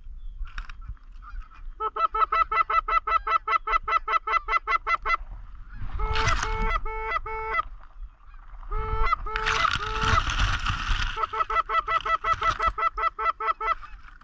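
Goose calling: a fast run of clucks, about six a second, then two groups of longer two-note honks (four, then three), then another run of fast clucks near the end.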